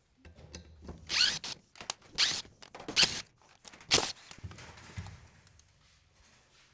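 Copper CPU heatsink being worked off a server mainboard: four short, loud scraping bursts about a second apart, with quieter clicks and handling noise between.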